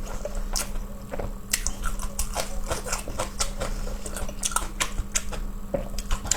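A person chewing food close to the microphone: irregular wet clicks and mouth smacks, several a second.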